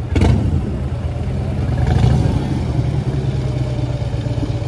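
Big custom bagger motorcycle's engine running at low speed, with brief revs just after the start and about two seconds in.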